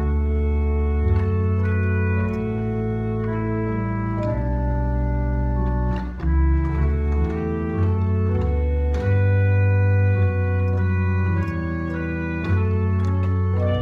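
Organ music: slow, held chords over a deep bass line, the harmony changing every second or two.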